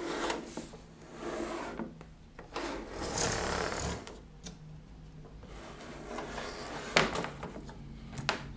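Handling noise of a metal-bodied toaster being turned and slid on a tabletop: several scraping, rubbing swishes, the longest about three seconds in, then a sharp knock about seven seconds in and a lighter click near the end.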